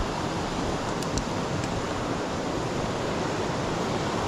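Fast-flowing river water rushing over rocks and rapids, a steady, even rushing sound.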